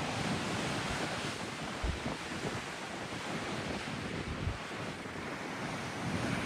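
Sea surf breaking and washing steadily in a strong gusty wind, with the wind buffeting the microphone in low thumps.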